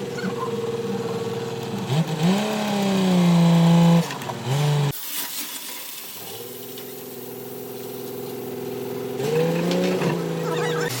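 Engine of a concrete mixer running steadily, revved up twice: once about two seconds in, held for a couple of seconds, and again near the end.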